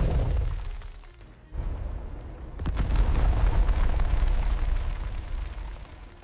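Explosion and booming-rumble sound effects. A deep rumble fades away over the first second and a half, a sudden blast cuts in, and a heavy rumble builds and then dies down near the end.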